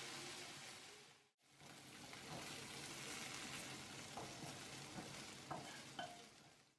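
Bacon pieces sizzling in a nonstick frying pan while a wooden spatula stirs them, with a few light knocks of the spatula against the pan. The sizzle drops out briefly about a second in, then carries on.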